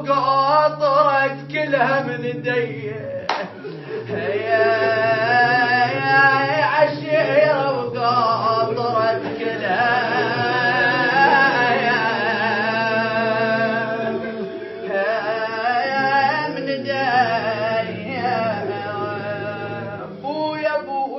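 A young man's solo voice singing an Iraqi Shia lament for Husayn in long, wavering, melismatic lines. There is a single sharp click about three seconds in.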